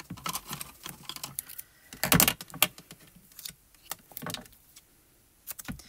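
Foam mounting tape being pulled off its roll and handled, giving irregular crackling peels and clicks. The loudest is a short rip about two seconds in, with smaller peels later.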